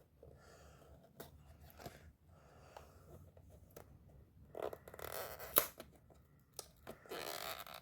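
Packaging of a Yu-Gi-Oh structure deck being handled and torn open: faint rustling and small clicks, then two louder tearing, scraping stretches about halfway and near the end, with a sharp click between them.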